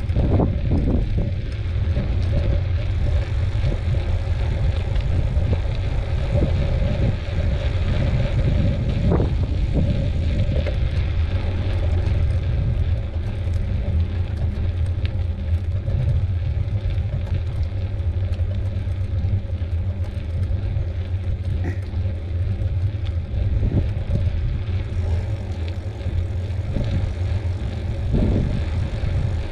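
Steady low rumble of wind buffeting the microphone while riding a bicycle, with the tyres rolling on the trail underneath.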